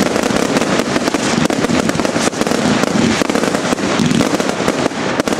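Firework batteries of the consumer (category F2) New Year's kind firing together in a finale. It is a dense, continuous volley of launches, bangs and crackle with no letup, fading away shortly after.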